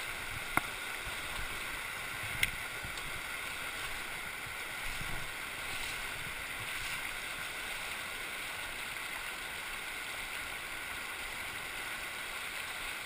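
Shallow river rushing and gurgling steadily over cobbles: the Virgin River in the Narrows. Two sharp clicks about half a second and two and a half seconds in.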